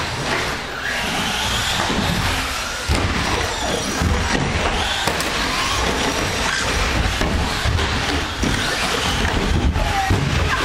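Electric RC short-course trucks racing on a dirt track: their motors whine, rising and falling in pitch as they speed up and slow down, under the hiss of tyres and scattered thuds of landings and knocks.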